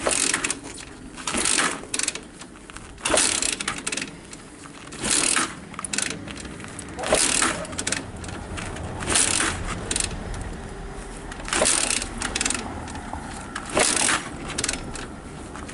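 Daelim VT 125 motorcycle being kick-started with the choke on. There are about eight kicks, roughly two seconds apart, each a short clatter as the engine turns over. The engine does not fire.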